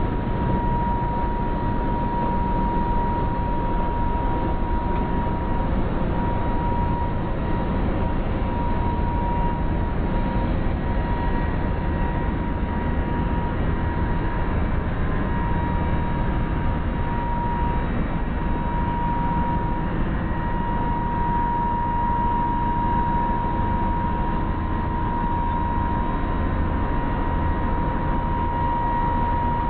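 Steady machinery noise with a constant high whine that does not change, typical of aircraft ground support equipment running on a flight line.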